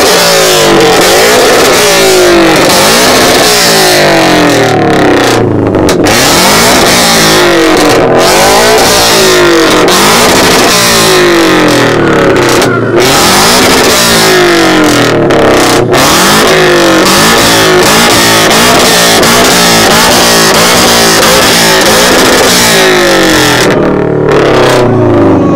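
Toyota 86's flat-four engine revved hard over and over through its exhaust, very loud, the pitch climbing and dropping every second or two in an exhaust-sound competition.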